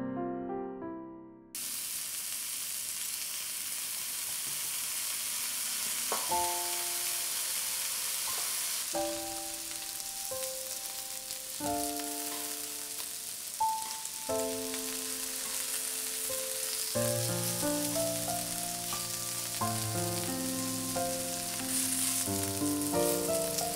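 Thinly sliced pork belly sizzling on a hot griddle, a steady frying hiss. Soft piano music comes back in over it a few seconds in and grows fuller in the second half.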